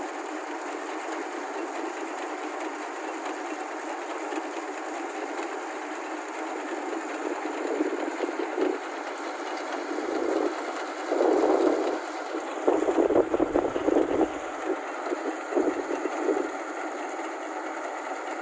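Rice combine harvester running, a steady mechanical clatter and hum, with several louder uneven surges in the second half.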